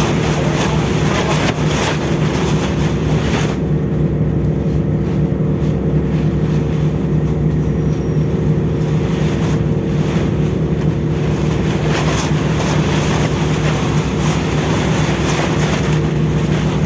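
Steady low drone of a ship's machinery, unchanging throughout, with wind gusting on the microphone now and then.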